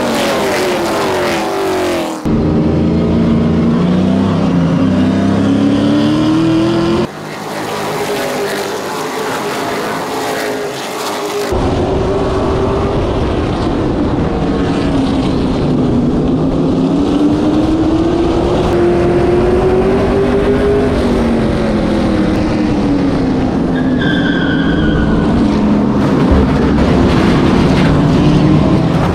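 Sportsman circle-track stock car engines at race speed, the engine pitch climbing and dropping every few seconds as the cars accelerate and lift through the laps. The sound changes abruptly several times, and a brief tire squeal comes near the end.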